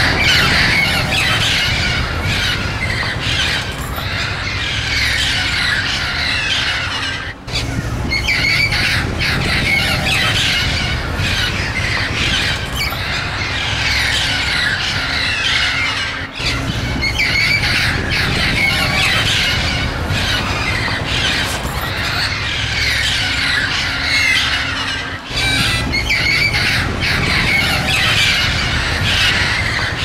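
A flock of wild amazon parrots squawking and screeching, many harsh calls overlapping without pause.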